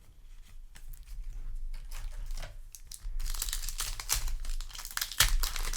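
Light rustles and clicks, then about three seconds in a foil Yu-Gi-Oh! booster pack wrapper crinkling loudly as it is torn open.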